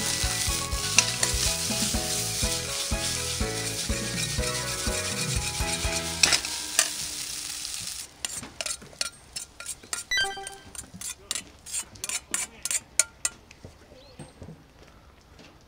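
Fried rice sizzling in an iron wok as it is stirred with a metal ladle, with background music over the first six seconds. About eight seconds in the sizzling stops and a run of sharp metallic clinks and scrapes follows as the ladle scoops rice out of the wok into a bowl.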